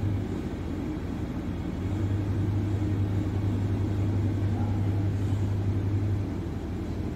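A steady low hum over a low rumble, weakening for about a second and a half near the start and again near the end.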